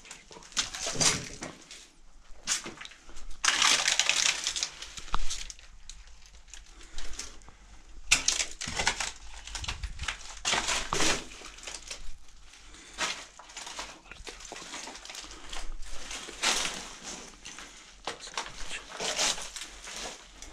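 Footsteps crunching over rubble and debris at an uneven pace: a run of irregular crunches and scrapes.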